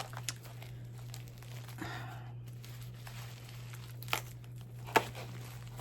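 Shipping package being cut open and torn, with packaging crinkling and a few sharp clicks, the loudest about five seconds in.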